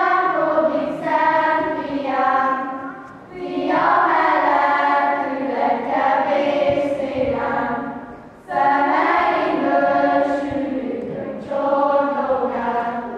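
A choir of voices singing together in long held phrases, with short breaks between phrases at about three and eight seconds in.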